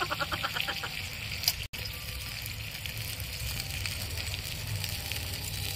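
Water trickling from a miniature brass kettle into a small clay pot of simmering soya chunk gravy, a faint, steady wash of sound. In the first second comes a quick run of short, quack-like pulses.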